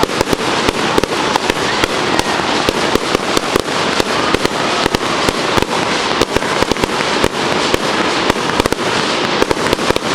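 Fireworks going off in a dense, continuous barrage: many sharp bangs and pops a second, over a steady crackle.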